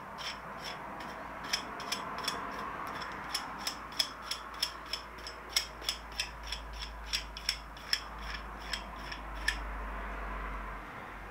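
Steel jam nut being spun by hand onto the threaded rod of a Hellwig sway bar end link, clicking about three times a second as it turns on the threads. The clicking starts a little over a second in and stops near the end.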